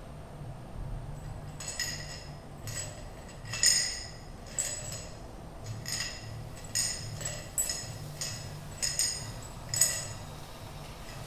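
Small hand-held percussion objects clinked together: about a dozen irregularly spaced high clinks, each with a short ring, the loudest near four and ten seconds in. A low steady hum runs underneath.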